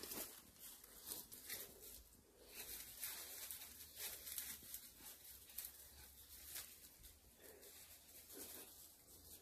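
Faint, irregular rustling and crunching of dry leaf litter and twigs underfoot, short crackles every half second or so.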